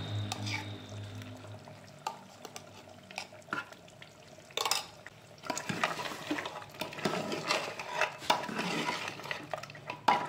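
A steel spoon stirring thick masala and mutton trotters in a metal pressure cooker: a few knocks at first, then, from about halfway, steady scraping and clinking of the spoon against the cooker's sides and bottom.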